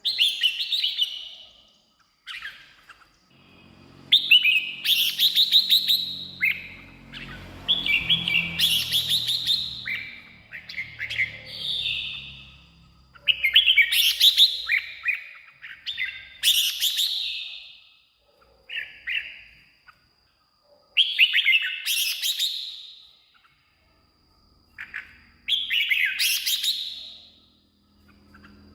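Red-whiskered bulbul singing: short, bright, warbled phrases repeated every two to three seconds, with brief pauses between them.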